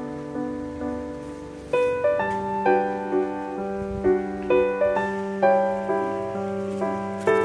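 Background piano music: single notes picked out over held chords, growing fuller and louder about two seconds in.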